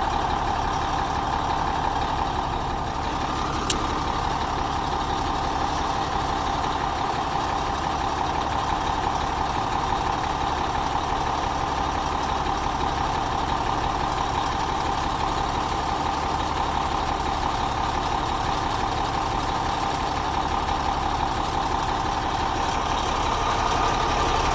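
A truck engine running steadily at idle, with a single sharp click about four seconds in.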